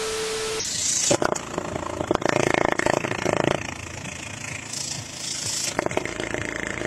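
A TV-static transition effect, a hiss with a steady beep, for about half a second. Then an idling engine whose exhaust blows out through a length of rubber tube pulled over the tailpipe, giving a rapid pulsing with louder surges.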